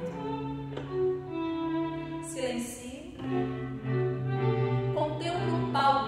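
String quartet of two violins, viola and cello playing slow sustained notes. About halfway through, the cello takes up a long low note under a moving upper line.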